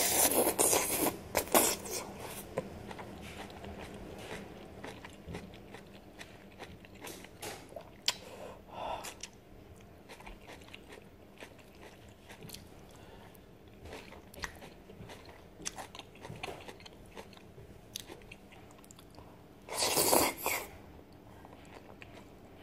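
A person eating noodles with chopsticks, close to the microphone: a loud slurp of noodles at the start and another about twenty seconds in, with soft chewing and mouth clicks in between.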